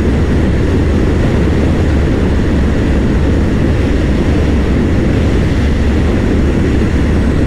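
Strong headwind buffeting the microphone of a Honda PCX 160 scooter ridden flat out at about 110 kph, with the scooter's engine running underneath. The noise is loud and steady and heaviest in the low range.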